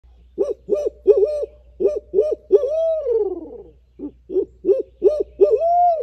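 A man imitating a barred owl's call with his voice. There are two series of quick hoots, and each ends in a long drawn-out hoot that slides down in pitch.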